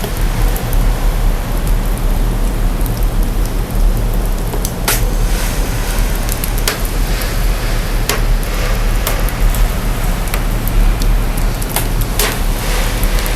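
Burning fire, its sound heavily processed: a steady hissing rush over a strong deep sub-bass rumble, with a few sharp pops and crackles scattered through.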